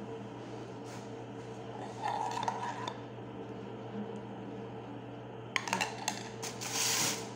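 Metal spoon scraping and clinking against the inside of a small metal pot as sauce is spooned out, with a cluster of sharp clinks and a longer scrape near the end, over a steady low hum.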